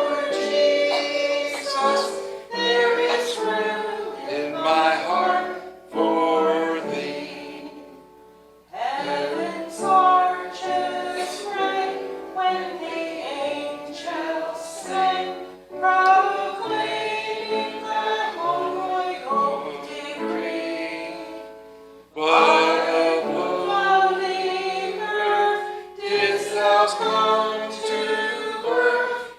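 Church congregation singing a hymn together, in phrases with short breaths between lines about eight seconds in and again about twenty-two seconds in.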